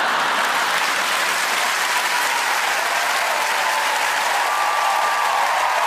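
A large theatre audience applauding, loud and steady.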